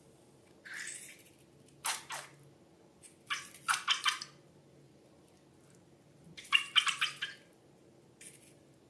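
Wet squelching and dripping of a thick slime mixture, in about five short crackly bursts with pauses between them.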